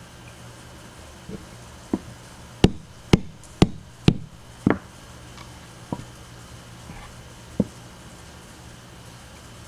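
Rubber mallet tapping wet wooden dowels into the holes of a wooden shelf: about nine separate knocks, the loudest a quick run of five in the middle.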